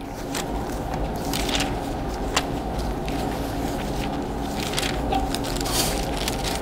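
Thin Bible pages being leafed through by hand, a few soft paper rustles and a small click, over a steady low hum.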